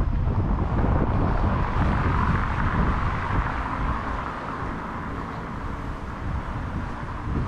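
Wind rumbling on the microphone of a camera carried along a street, over a steady hiss of passing traffic. The wind rumble eases off in the second half.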